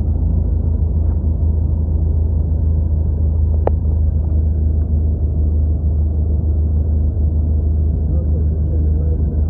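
Single-engine Cessna's piston engine and propeller giving a steady low drone, heard from inside the cabin. A single sharp click sounds about a third of the way in.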